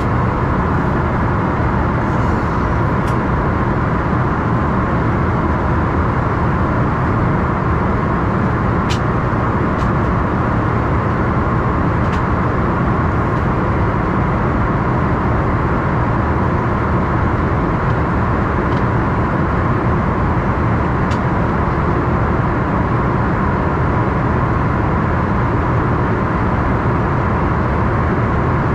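Steady cabin noise inside an Embraer ERJ-145 regional jet: the rumble of its rear-mounted Rolls-Royce AE 3007 turbofans and airflow, with a steady hum, running evenly throughout. A few faint clicks sound over it.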